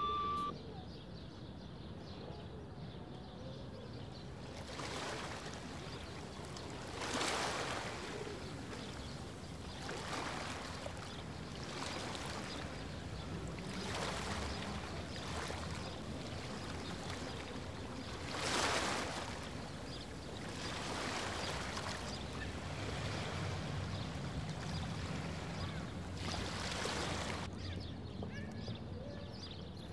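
Sea waves breaking and washing in, a swell of noise every few seconds over a steady low rumble.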